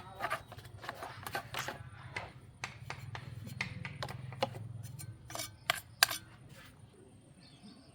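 Irregular clicks, knocks and scraping of hand work on metal parts, over a low hum that fades out about five seconds in.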